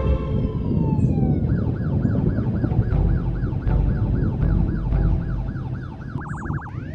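Electronic police siren cycling through its modes: a slow falling wail, then a fast yelp at about four cycles a second, a brief quicker warble near the end, and a new wail starting to rise, over a low rumble.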